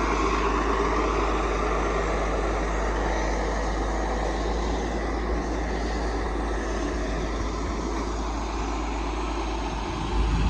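Heavy diesel equipment engine running steadily, with a constant low rumble and no clear change in speed.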